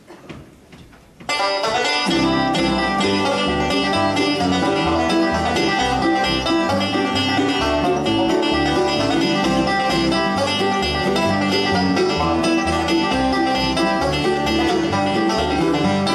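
Acoustic bluegrass band playing the instrumental opening of a song, plucked strings over a steady bass line. It kicks in about a second in, after a brief hush.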